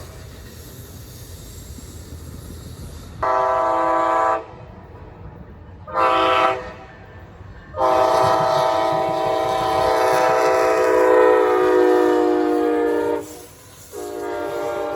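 Amtrak locomotive's multi-note air horn blowing a blast of about a second, a short blast and then a long blast of about five seconds, the end of the long-long-short-long grade-crossing warning. Another horn blast begins near the end, over the low rumble of the train.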